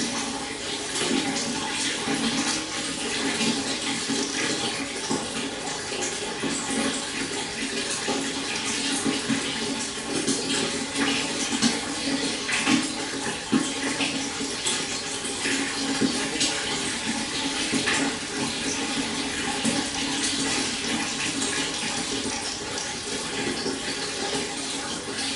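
A stream running and babbling over rocks: a steady rush of water full of small, quick splashes.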